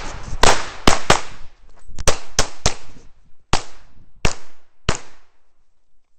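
Rapid pistol fire from a stainless 1911-pattern pistol in .45 ACP: about nine sharp shots in roughly four and a half seconds, several in quick pairs.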